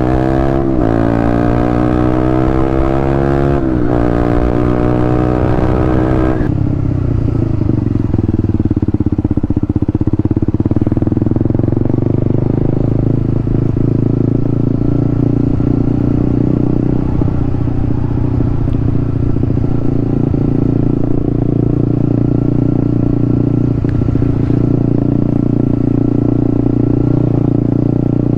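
Honda CB150R single-cylinder motorcycle engine accelerating through the gears: its pitch rises, drops at two upshifts and climbs again, then settles into a steady cruise with low rumble for the rest of the ride.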